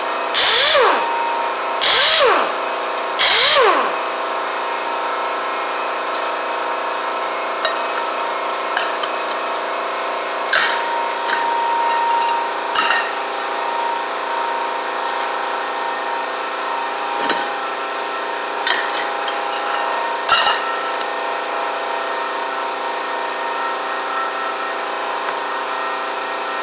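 Three short bursts of a handheld power tool spinning fasteners on a Harley twin cam engine under teardown, each whirring up and back down in pitch, in the first few seconds. Scattered metal clicks and clinks of tools and parts follow, over a steady background hum.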